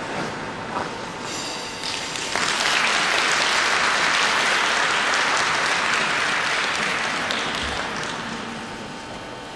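Audience applauding in an ice arena, swelling about two seconds in and dying away near the end.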